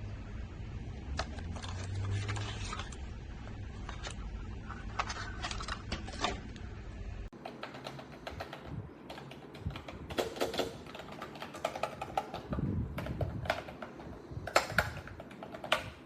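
Typing on a wireless keyboard with round, typewriter-style keycaps: irregular bursts of key clicks. A low hum sits under the first half and stops abruptly about seven seconds in, after which the clicks sound clearer.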